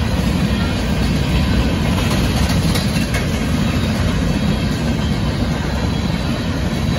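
Covered hopper cars of a Union Pacific grain train rolling past over a grade crossing: a steady low rumble of wheels on rail, with a few faint clicks a couple of seconds in.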